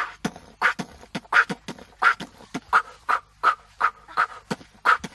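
Goat making a quick, rhythmic run of short grunting mouth sounds, about three a second, with no let-up.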